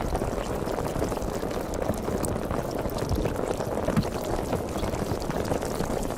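Sparkling water fizzing: a steady, dense crackle of countless tiny bubbles popping.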